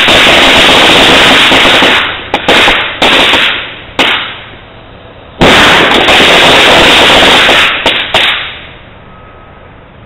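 Fireworks going off, very loud: a dense burst of about two seconds, a few sharp pops and short bursts over the next two seconds, then a second long dense burst from about five and a half to eight seconds in that fades out.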